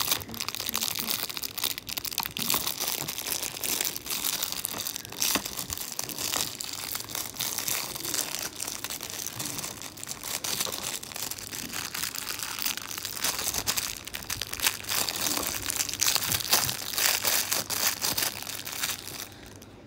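Clear plastic wrapper crinkling as it is handled and pulled off a small pink plastic toy: a dense, continuous crackle that dies away just before the end.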